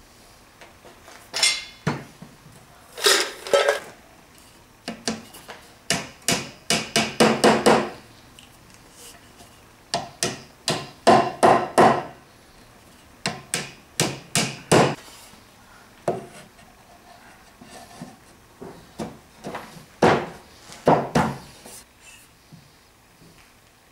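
Wooden mallet tapping wooden dowels down into glued holes in a wooden box: sharp knocks in short groups of several taps, with pauses between the groups.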